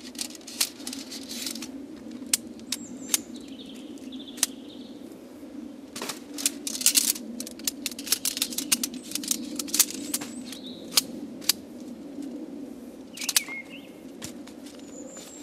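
Shock-corded tent pole being unfolded and fitted together, its sections clicking into one another in a long run of sharp clicks, densest midway, with handling rustle. Birds chirp a few times in the background.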